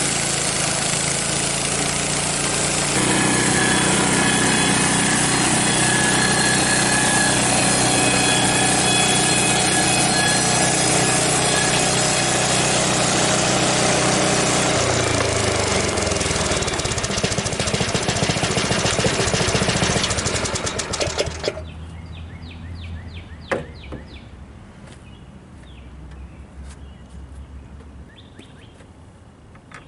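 The gas engine of a Frontier OS23 bandsaw mill runs at high speed while the band blade saws through cottonwood. About 15 seconds in the engine drops in pitch as it slows. Around 21 seconds in the loud running stops suddenly, leaving a low hum and light ticking.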